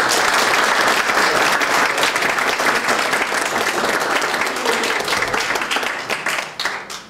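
Audience applauding: a steady wash of clapping from a roomful of people that thins out and fades near the end.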